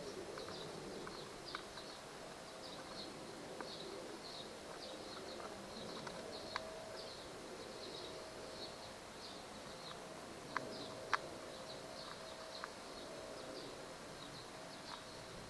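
Faint outdoor ambience: short high chirps repeating evenly about twice a second, with a few light clicks of a small screw being handled against a plastic part, the loudest two about two thirds of the way through.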